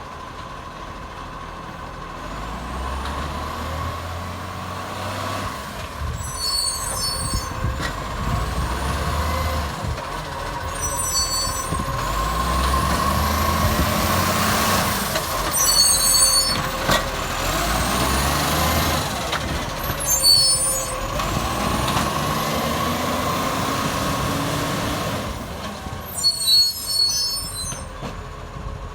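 Acco garbage truck's diesel engine revving up and falling back in repeated cycles, its leaking exhaust making it loud, with a steady whine throughout. Short sharp hisses of released air sound about five times, roughly every four to five seconds.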